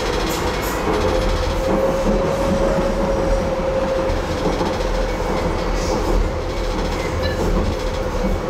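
Docklands Light Railway train running between stations, heard from on board: a steady rumble with a held whine and occasional wheel clicks over the rail joints.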